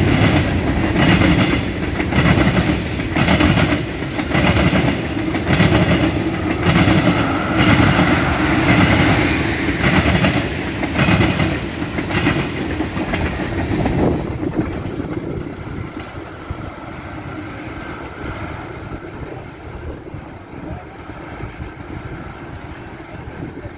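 Freight train cars, covered hoppers and tank cars, rolling past, their wheels clacking over rail joints in a steady rhythm about once a second. About 14 seconds in the clacking stops and the train noise fades away.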